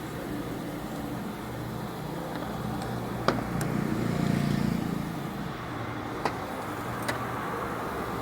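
Road vehicle noise in the background, with a vehicle passing about four seconds in, and a few sharp clicks and knocks of engine parts being handled.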